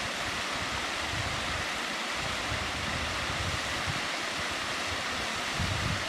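Thin waterfall streams pouring down a rock face in a steady, even rushing hiss. Wind buffets the microphone in uneven low gusts underneath.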